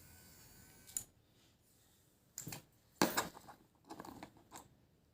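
Small motor of an electric face massager humming faintly, stopping with a click about a second in. Then come a few short clattering handling noises, plastic attachments and their wrapping being picked up.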